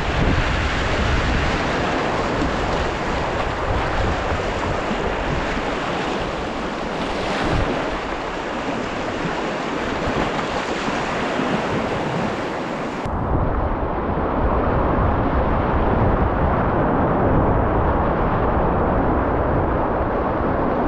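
River rapids rushing close to a kayak-mounted microphone, with wind buffeting the mic. About two-thirds of the way through, the sound changes abruptly to a duller, heavier rush.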